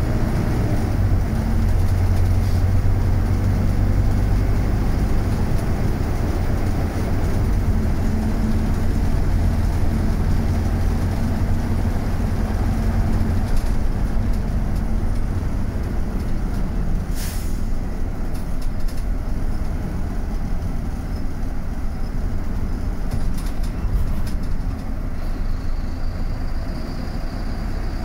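Bus running on the road: a steady low engine drone with road rumble, the hum easing a little about halfway through.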